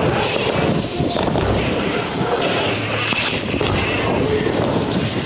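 Mountain bike tyres rolling over ramps against a steady din.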